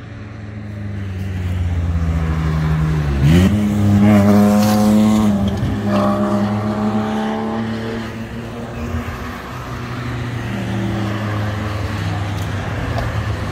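Race cars passing at speed one after another, their engines climbing sharply in pitch about three seconds in. The loudest pass comes between three and five seconds in, and quieter passes follow.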